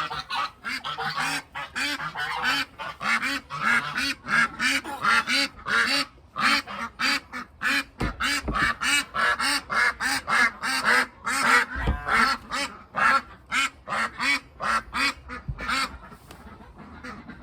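A flock of domestic ducks quacking without a break, many short calls a second overlapping, with some goose honks mixed in. Two dull low thuds about eight and twelve seconds in.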